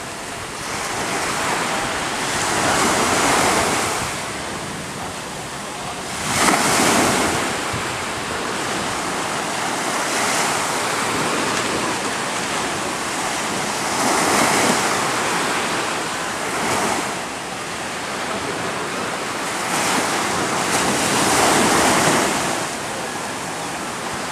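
Small ocean waves breaking and washing in shallow surf, the rush swelling and easing every few seconds.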